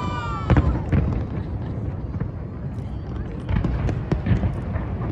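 Fireworks going off: a whistle trails away at the start, a sharp bang comes about half a second in, then scattered pops and crackles over a low rumble, with crowd voices underneath.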